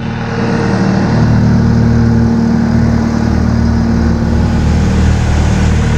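Farm machine's engine running steadily at constant speed.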